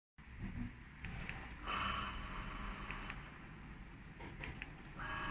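Nice Robo sliding gate opener running, with a faint steady hum from its motor that comes in a couple of seconds in and again near the end, and scattered clicks and rattles.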